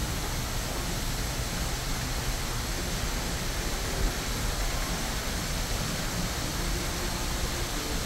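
Steady rush of a waterfall pouring into a large fish tank: an even hiss of falling, splashing water.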